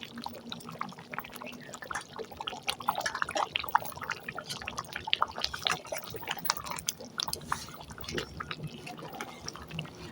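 Thick moong dal simmering in a kadai, with bubbles popping irregularly at the surface.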